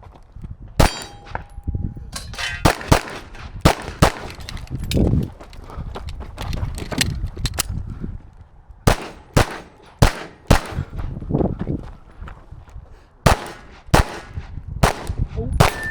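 Competition pistol shooting with a 9mm Canik TP9: sharp shots, many in quick pairs, come in bursts separated by pauses of a second or more as the shooter moves and reloads through a stage. A short electronic shot-timer beep sounds about a second in, starting the run.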